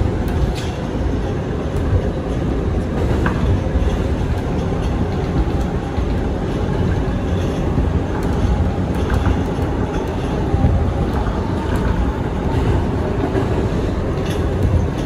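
Kawasaki R211A subway car running along the track at speed: a steady low rumble of wheels on rail, with a few sharp clicks scattered through it.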